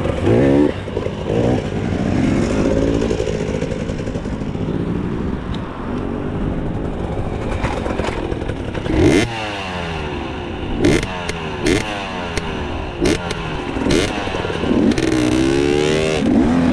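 Enduro motorcycle engine revving up and down as it is ridden off-road, with several sharp knocks and clatter in the second half.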